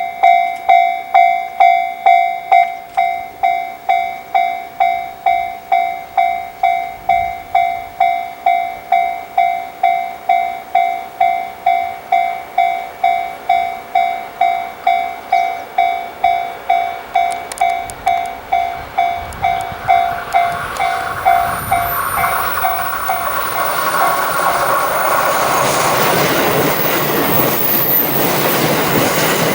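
Japanese level crossing alarm sounding its bell tone about twice a second; from about 20 seconds in it is drowned out as a Series E353 electric express train arrives and passes with loud, steady wheel and running noise.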